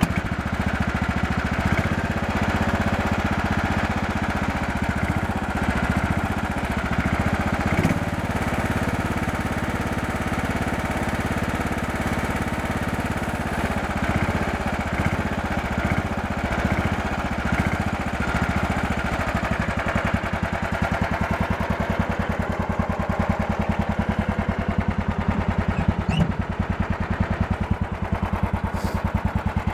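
John Deere 180 lawn tractor engine running steadily, with an even, unchanging beat of firing pulses.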